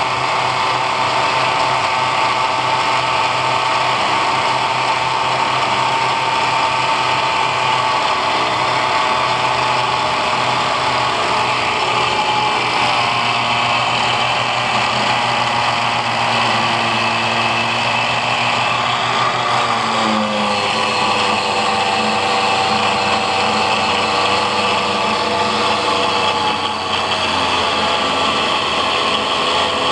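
Angle grinder mounted as a cut-off saw, running continuously with a steady high whine that shifts lower in pitch about a third of the way in and again about two thirds of the way in.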